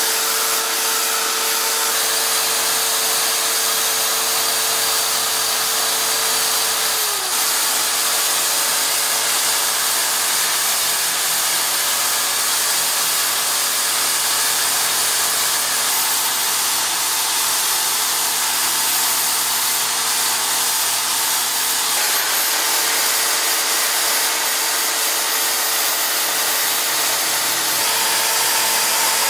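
Electric power tool motor running steadily with a whine and a hiss of noise. The whine drops away about seven seconds in and returns about 22 seconds in.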